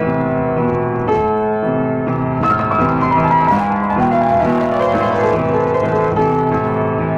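Piano playing a ballad: sustained chords with a melody line over them, a new chord or note struck every second or so.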